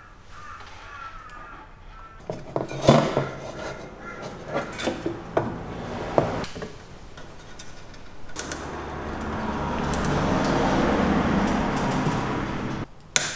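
Handling noise from fitting a metal hard drive cage into a wooden frame with plastic cable ties: a run of sharp knocks and clicks. A steady rushing noise lasts several seconds near the end.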